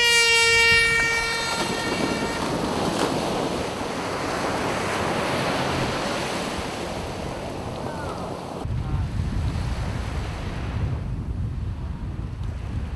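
Start horn for a triathlon swim start: one steady blast of about two seconds, its pitch dipping as it begins. Then a steady rush of surf and the splashing of a pack of swimmers entering the sea. From about two-thirds of the way in, wind rumbles on the microphone.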